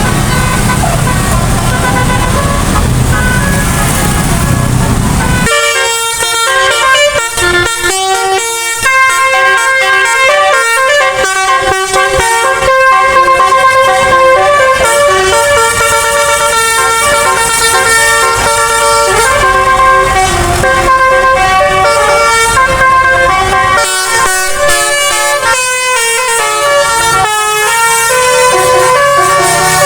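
Road noise with a running bus engine. About five seconds in, a bus's telolet basuri musical air horn starts and plays a long tune of steady horn notes that change pitch from note to note.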